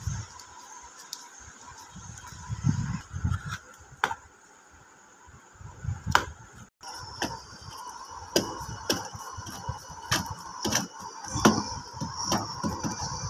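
Irregular clicks and scraping from hand-tool work on the amplifier's plastic panel, enlarging the mounting hole for a switch. A faint steady high whine runs beneath it from about halfway through.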